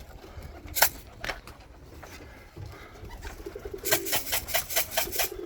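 Domestic pigeons cooing at the loft, with a couple of sharp taps about a second in and a quick run of sharp claps near the end.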